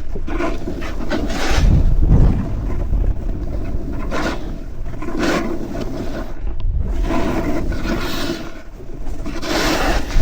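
Snowboard edges scraping and hissing over packed snow in a run of turns, each turn a swell of scraping every second or two, over a steady low rumble of wind on the microphone.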